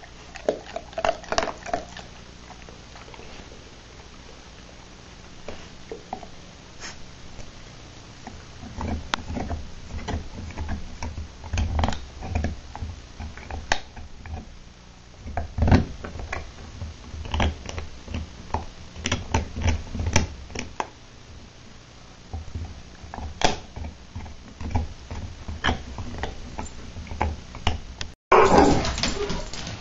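Yellow Labrador retriever gnawing a dried chew stick: irregular crunching and clicking bites with pauses between runs of chewing. Near the end a sudden louder noise cuts in.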